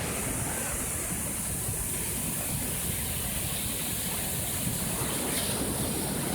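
Steady rushing noise of sea and wind on the coast, with a rough low rumble under it.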